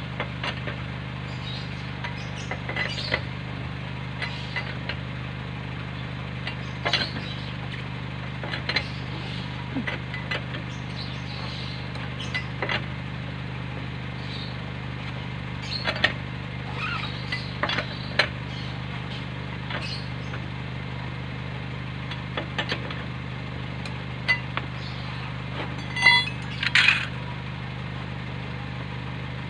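Scattered metallic clicks and clinks as hand tools are handled at a car wheel, with a louder ringing clink near the end, over a steady low hum.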